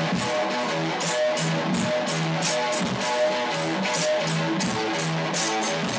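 Instrumental music: strummed guitar over a steady drum beat.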